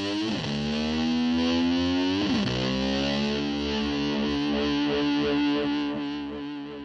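A heavily distorted electric guitar held on long, sustained notes. It swoops sharply down in pitch twice and then slides slowly up, in the slide-guitar style used to mimic a motor scooter revving. The sound fades out near the end as the song finishes.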